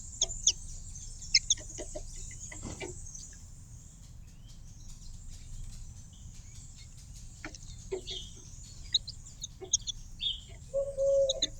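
Small garden birds chirping in short sharp notes over a steady high background chorus. A short, lower-pitched call comes near the end.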